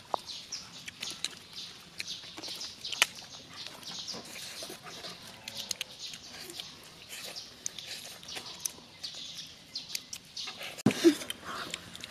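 People biting and chewing grilled pork ribs: wet lip-smacking and chewing clicks throughout, with a louder bite and mouth sound near the end.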